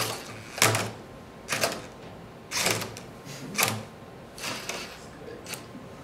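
LEGO Mindstorms NXT Rubik's cube solving robot working through its moves: the plastic arm lifts the cube half out of its cradle and lets it fall back, tipping it over. Each move is a short plastic clatter, about one a second, six times, with quieter mechanism noise between.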